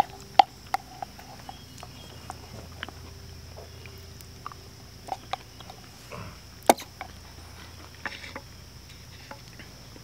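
Wooden spoon clicking and scraping against a metal camp cup during eating: scattered sharp clicks, two of them louder, just after the start and about two thirds of the way through.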